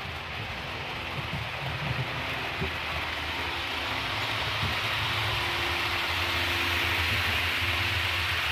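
Model steam locomotive and its string of hopper cars rolling along the layout track: a steady running hum with rail hiss that grows gradually louder as the train comes past.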